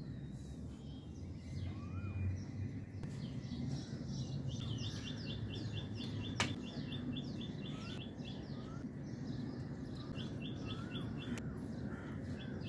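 Birds chirping in the background: quick runs of short repeated chirps, the longest about five seconds in, with a few short rising calls between, over a steady low rumble. A single sharp click sounds about six seconds in.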